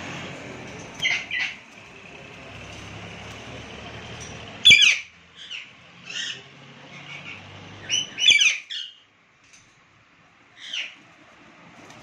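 Caged parakeets, Alexandrine and rose-ringed, give short, shrill squawks, about seven calls spread out with the loudest near the middle. A low steady hum runs underneath and stops about three-quarters of the way through.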